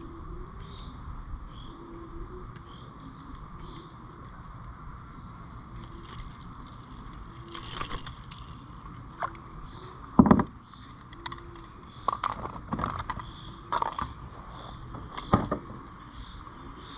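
Scattered knocks, scrapes and rattles as a small peacock bass is weighed on a lip-grip scale and handled over a plastic kayak. The loudest is a dull thump about ten seconds in. Insects buzz steadily behind.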